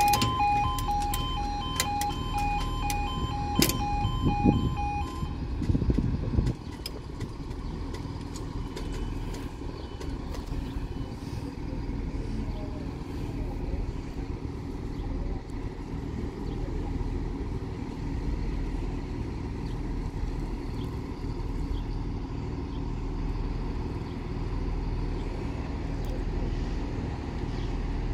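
Level crossing alarm sounding its two alternating tones, which stop about five seconds in. A heavier low rumble swells around the same time, and after that a steady low diesel rumble continues from the train standing at the platform.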